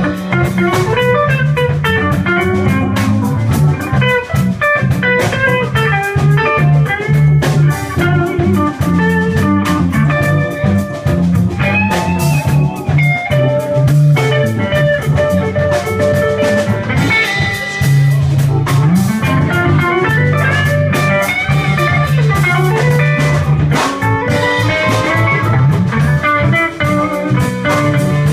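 Live blues band playing an instrumental stretch: an electric guitar plays a lead line with bent notes over bass guitar, keyboard and a drum kit keeping a steady beat.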